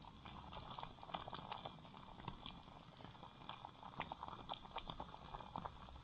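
Thick butter chicken sauce simmering in an open pot on a gas canister stove, its bubbles popping in many small, irregular plops.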